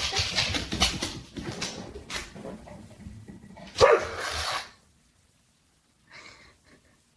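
A dog barking, with the loudest bark about four seconds in.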